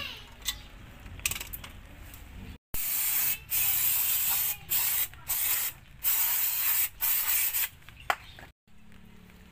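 Aerosol brake cleaner sprayed onto a drum brake assembly in about six short hissing bursts. Before the spraying there are a few light metallic clicks.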